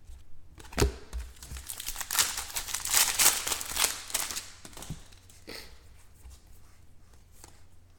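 Crinkling and rustling of trading-card packaging as cards are handled. The crinkling is busiest from about two seconds in to about four and a half seconds in, with a few sharp clicks, then settles to quieter rustling.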